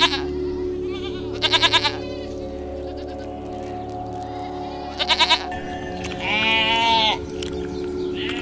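A goat kid gives three short, quavering bleats, then a sheep gives one longer bleat near the end, over steady background music.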